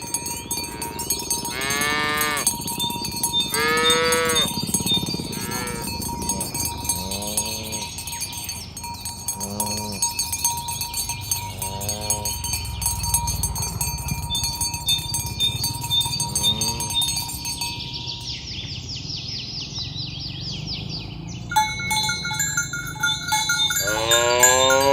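Cattle mooing again and again: two long, strong moos near the start, a run of shorter moos through the middle and a loud moo near the end, over steady high ringing tones.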